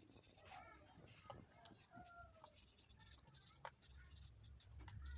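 Faint clucking of a chicken, a few short calls, with scattered light ticks of a marker pen on paper.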